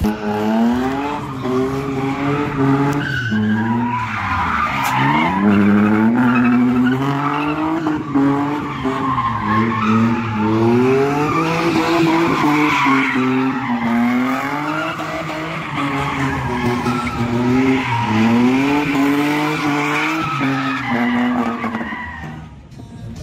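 A drift car sliding through a demo run: its engine revs up and falls back over and over as the rear tyres screech. The noise dies down near the end.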